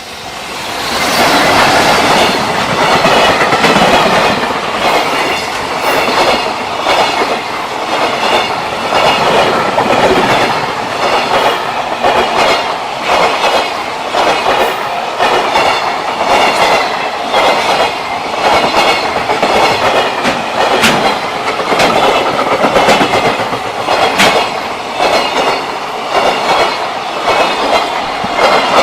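JR Freight train passing close by, its long string of wagons rolling past with a steady clatter of wheels over the rail joints. It comes in loud about a second in and keeps clattering without letup.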